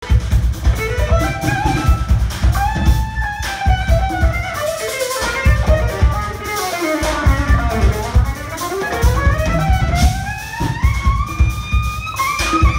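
Electric violin soloing live with a jazz-funk band, playing a lead line of long pitch slides that sweep down and then climb back up to a high held note, over the band's drums.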